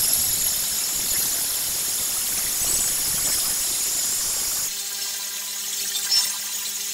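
A 5160 steel knife blade ground against the running belt of a belt grinder, a steady high grinding hiss, for about four and a half seconds. Then the blade is lifted off and the grinder runs unloaded with a steady motor hum.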